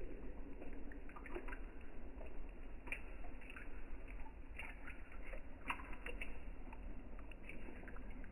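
Water trickling, with scattered small drips and splashes.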